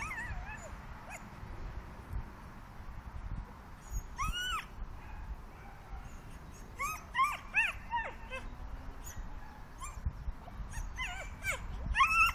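A dog whining and yipping in short high calls that rise and fall. They come in groups: right at the start, about four seconds in, around seven to eight seconds in, and near the end.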